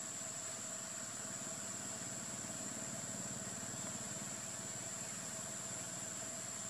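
Steady background ambience: an even hiss with a constant high-pitched whine and a faint low hum, and no distinct events.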